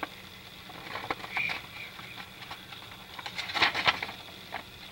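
A paper instruction leaflet rustling and crinkling as it is handled and unfolded: short rustles about a second in and a louder cluster about three and a half seconds in.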